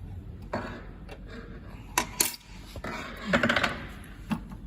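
Light metallic clicks and clatter from parts being handled and set on a soldering machine: a few separate sharp knocks and a brief rattle over a low steady hum.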